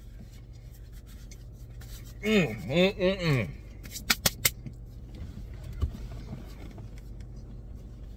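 Inside a car, a steady low hum, with a man's short wordless, muffled vocal sound about two seconds in. It is followed about four seconds in by four quick sharp clicks.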